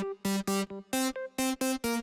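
Upbeat electronic synthesizer music: short clipped notes, about four a second, over a steady beat.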